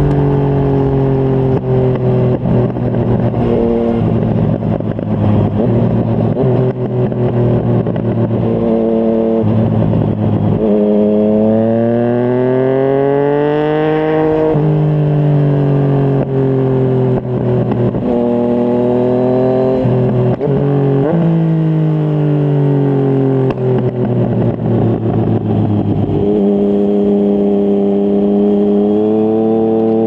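Yamaha MT-09's three-cylinder engine through a Yoshimura R55 slip-on exhaust, heard from the rider's seat at highway speed. It runs fairly steady at first, then the pitch climbs for about four seconds, drops sharply, and falls away as the bike slows, with a couple of sudden jumps in pitch along the way.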